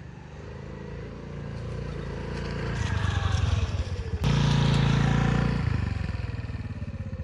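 Small motorcycle engine running and revving as the bike rides up close, growing louder with falling pitch glides. About four seconds in it jumps sharply louder after a click, then fades as the bike pulls away.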